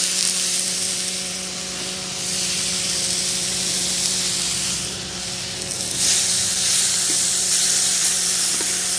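Steak sizzling on a hot propane-fired Tembo Tusk Adventure Skottle griddle, a steady frying hiss that grows louder about six seconds in.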